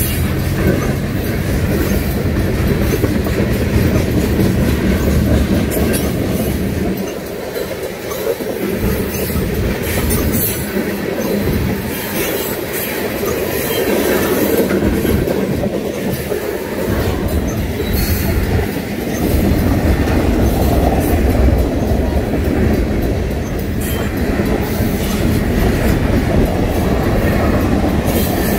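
Freight train's tank cars and covered hopper cars rolling past at a grade crossing: loud, continuous rumble of steel wheels on the rails with irregular clanks and clatter. The deep rumble drops away briefly about seven seconds in and again around sixteen seconds, then returns.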